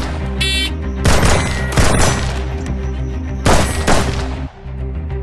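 AR-15 carbine firing about six shots in three quick pairs, each pair under half a second apart, over background music.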